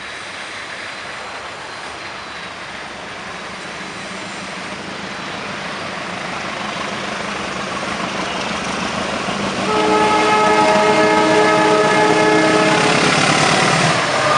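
Argo Muria passenger train approaching, its rumble growing steadily louder. About ten seconds in, the locomotive horn sounds a long blast of several notes at once that lasts about three seconds.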